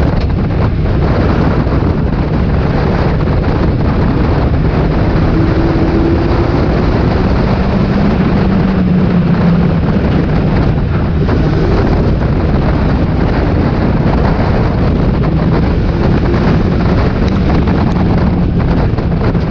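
Mk4 Ford Fiesta stock car's engine running hard at racing speed, heard from inside its stripped cabin, its pitch rising and falling gently, under loud, steady road and wind noise.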